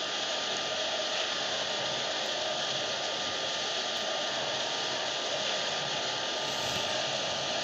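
Steady, unbroken rushing noise of a running appliance that blows air, loud enough to cover the room.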